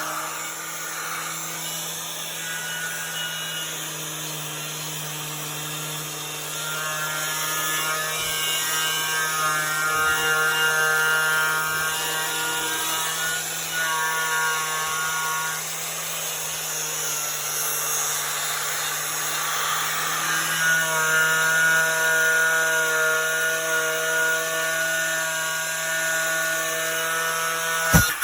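Milwaukee 11 amp angle grinder with a twisted-knot wire cup brush, running steadily as it strips paint and rust off a metal door; the motor's whine shifts in pitch now and then. A sharp click near the end.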